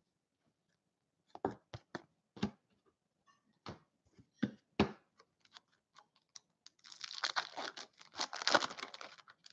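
A few separate light taps and clicks of card packs being handled on a table, then, about seven seconds in, a foil trading-card pack wrapper crinkling and tearing open for about two seconds.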